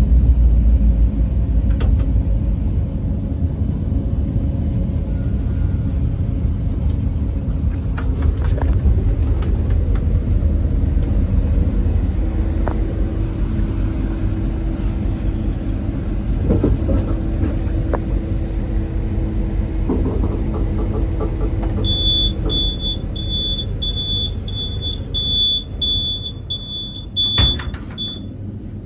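Passenger train carriage in motion: a steady low rumble of the wheels and running gear. Near the end a high electronic beep repeats about twice a second for several seconds, and a single sharp knock follows.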